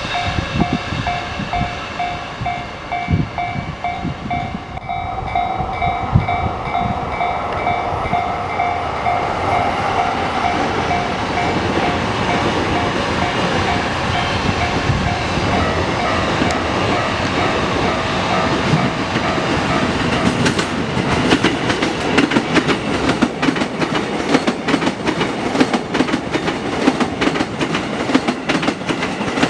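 Japanese level-crossing warning bell ringing in fast, evenly repeated dings, its tone shifting partway through. About twenty seconds in the bell fades under a train passing through the crossing, its wheels clattering rhythmically over the rail joints.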